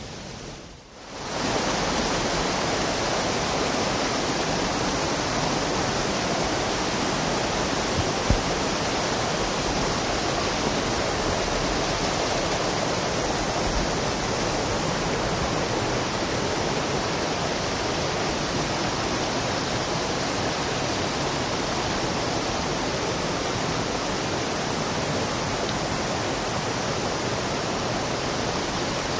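Waterfall: water rushing steadily. The sound swells in abruptly about a second in, then holds at an even level.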